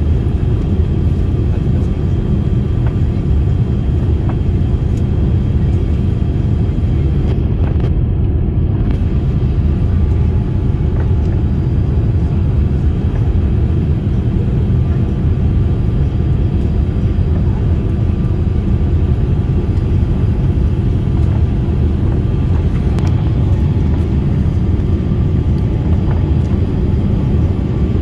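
Steady, loud cabin noise of an airliner, engines and airflow heard from inside the passenger cabin.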